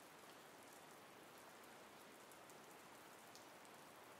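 Faint, steady rain ambience from a sound-effects recording: an even hiss of rainfall with a few scattered drop ticks.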